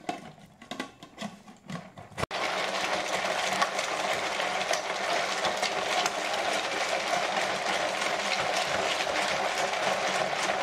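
A few handling knocks and clicks. Then, just over two seconds in, an electric ice cream maker switches on and runs steadily, churning the half-frozen mix.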